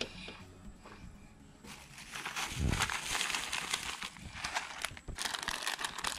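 Crinkling, crackling rustle of close handling, starting about two seconds in and going on with a short break near the five-second mark.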